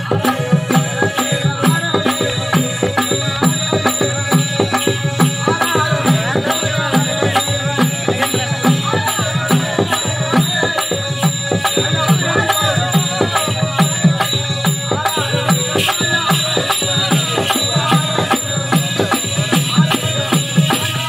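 Loud live Tamil folk stage music: a fast, steady drum beat with jingling, rattling percussion, and a wavering melody line above it.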